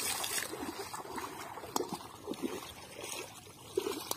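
Bare feet wading through shallow water and soft mud, with irregular small splashes and squelches and a light trickle of water.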